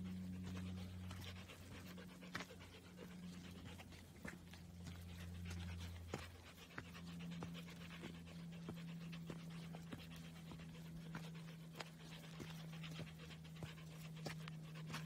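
Footsteps crunching on a dirt trail, with a walker's heavy breathing from the climb, over a faint steady low hum.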